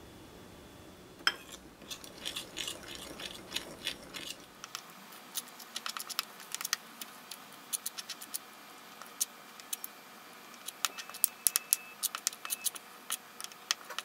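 Metal spoon clinking and scraping irregularly against a ceramic bowl while stirring a thick, clumping glutinous rice flour and sugar paste.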